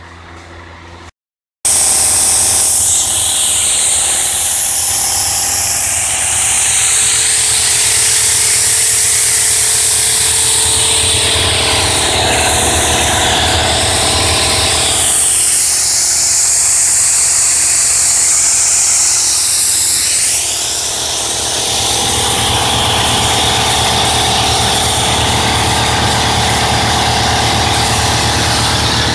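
Power sander or grinder running continuously against car body metal, a loud steady hiss whose high pitch shifts up and down as the tool is worked, over a steady low hum. It starts abruptly after a moment of silence about a second in.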